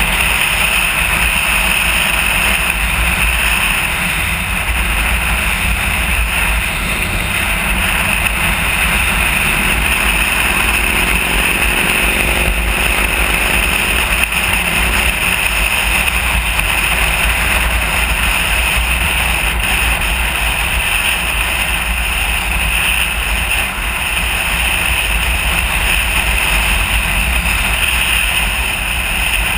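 Steady wind and road noise on the microphone of a camera mounted on a motorcycle cruising at highway speed, with low buffeting throughout.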